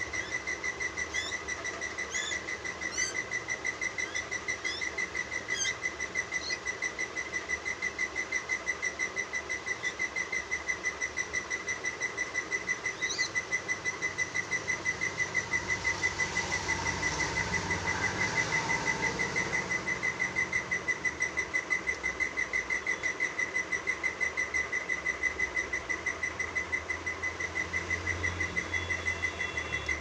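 Baby bird begging while being hand-fed: a steady, rapidly pulsing high call, with a few short rising chirps in the first few seconds and once more near the middle.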